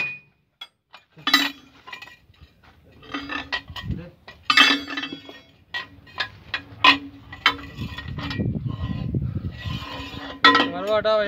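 Long steel bar knocking against a crawler excavator's steel track links and undercarriage: a series of sharp, irregular metal clinks, several with a short ringing tone.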